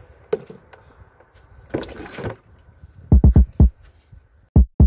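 A run of short, dull thumps on a hand-held camera's microphone, four close together about three seconds in and two more near the end, after a brief rustle.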